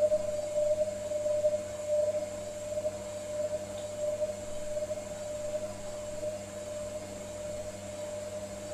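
Hotpoint Ariston Aqualtis front-loading washing machine on its wool cycle, its drum turning with a steady hum and a steady whine from the motor. The machine gets gradually quieter over the first few seconds, then holds level.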